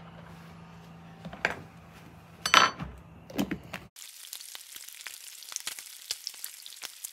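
A few sharp knocks over a low steady hum, the loudest about two and a half seconds in. Then, from about four seconds in, bacon frying on a flat-top griddle: a steady sizzle full of small crackling pops.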